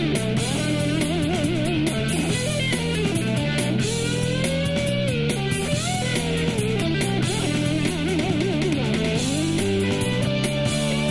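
Electric ukulele playing a single-note lead melody with wide vibrato and string bends, over a steady lower chordal accompaniment.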